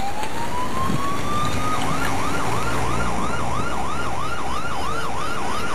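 Emergency vehicle siren. A slow wail rises in pitch, then about two seconds in it switches to a fast yelp of about three sweeps a second.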